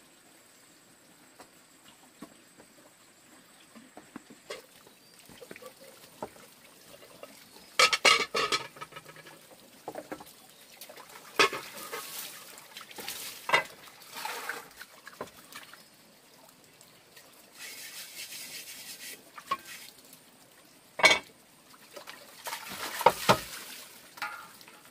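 Pots and utensils knocking and clattering, with water splashing and pouring in between.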